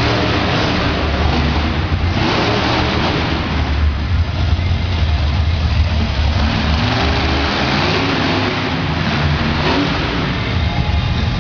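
Swamp Thing monster truck's supercharged V8 engine running loud and revving, its pitch rising and falling repeatedly as the truck drives.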